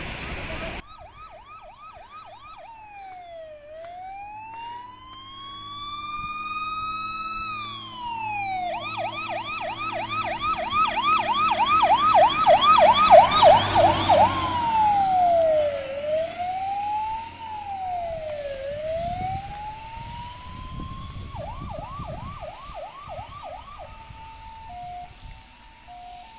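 Fire engine sirens on an emergency run, switching between a slow rising-and-falling wail and a fast yelp, with the truck's engine running underneath; loudest as a fire engine passes close about halfway through. Near the end the pattern changes to a two-tone high-low alternation.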